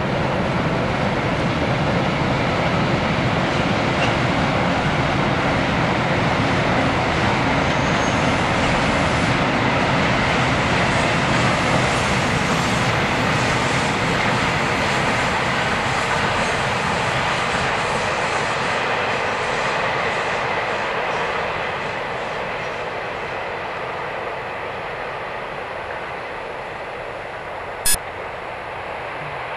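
Long freight train behind an electric locomotive rolling past, a steady rush of wheels on rail that grows quieter in the last third as the wagons draw away round the curve. A single sharp click comes near the end.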